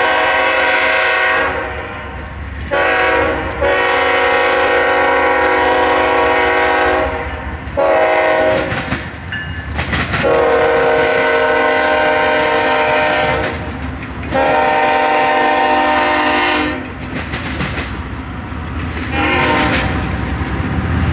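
Air horn of a BNSF diesel freight locomotive blowing a series of blasts, several long ones and one short one, in the pattern sounded for a grade crossing. Between the blasts comes the rumble of the diesel locomotives and the clatter of the wheels as the engines and then the double-stack container cars roll past close by.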